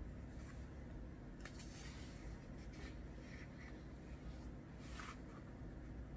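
Faint steady low background hum with a few soft, scratchy rustles scattered through the first five seconds.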